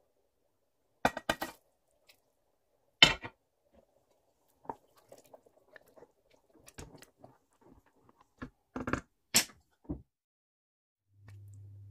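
Scattered clicks and knocks of kitchen handling, with sharper ones about a second in, three seconds in and about nine and a half seconds in, and softer ticks between them. A low steady hum starts near the end.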